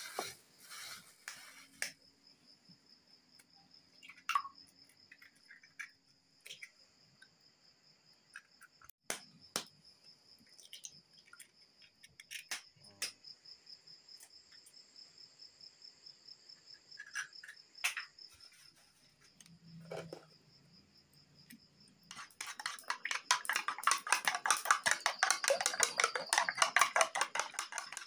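A plastic bag rustling briefly, then a quiet stretch with a cricket's steady high trill and a few scattered sharp taps as eggs are cracked. From about 22 seconds in, a spoon beats eggs fast in a ceramic bowl, a rapid, loud clatter of clicks.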